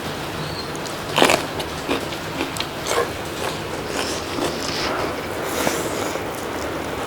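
Close-miked eating: irregular bites and chewing, with the loudest bite about a second in.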